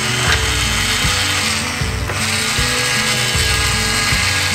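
Plastic toy dentist drill from a Play-Doh Drillin' Dentist set running continuously with a mechanical ratcheting whirr as it drills out a Play-Doh cavity. Background music plays underneath.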